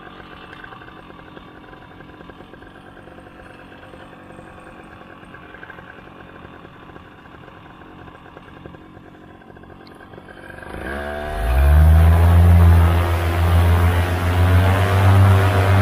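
Vittorazi Moster two-stroke paramotor engine idling low behind the pilot, then throttled up about ten seconds in, its pitch rising quickly to a loud, steady full-power run for the takeoff.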